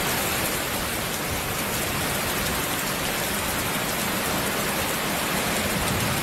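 Heavy rain pouring down, a dense steady hiss.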